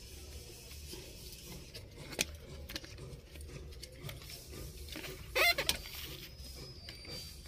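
Handling noise from a steering-column signal-light and hazard switch assembly and its wiring being moved by hand: light rustling and small plastic clicks, with one sharp click about two seconds in. A short squeak about five and a half seconds in is the loudest sound.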